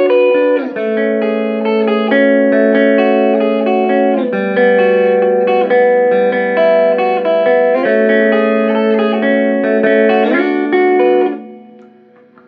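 Squier Paranormal Baritone Cabronita Telecaster played through an amp with the pickup selector in the middle position, both single-coil pickups on. It plays low chords and single notes, changing every second or two, and a final chord fades away near the end.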